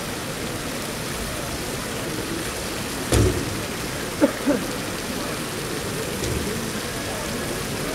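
Rifle butts grounded on the stage together in one heavy thump about three seconds in, with a lighter knock about a second later, over a steady rushing background hiss.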